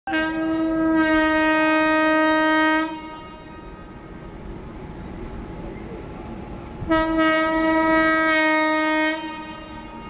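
Air horn of a GZB-shed WAP-7 electric locomotive approaching from a distance, sounding two long steady blasts of about three and two seconds, with a quieter background between them.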